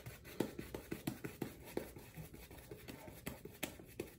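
Badger-hair shaving brush working lather on stubbled skin: faint, irregular scratchy brushing strokes, a few a second.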